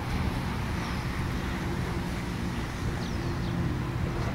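Steady low mechanical hum under outdoor background noise, with no club strike yet.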